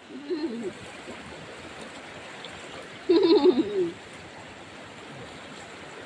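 Swollen stream rushing steadily over rapids, with two short, low warbling calls, the louder one about three seconds in.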